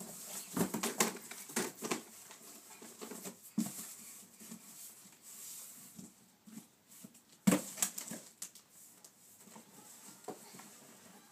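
Cardboard diaper box being knocked, scraped and shoved across the floor as a toddler plays in it, with a run of knocks and rustles in the first two seconds and one sharp loud knock about seven and a half seconds in.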